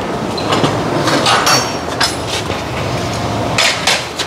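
A few sharp metallic clanks and knocks of tools and parts being handled while car wheels come off on a lift, over a steady background hum.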